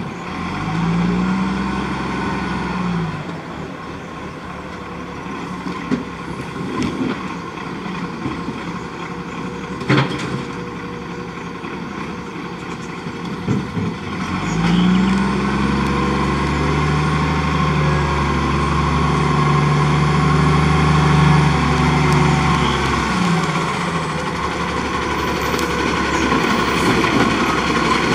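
Iveco Acco side-loader garbage truck's diesel engine idling, revving up briefly near the start and then held at higher revs for about eight seconds midway before dropping back, as the engine drives the hydraulic lifting arm that tips the bins. A few sharp knocks from the arm and bins are heard between the revs.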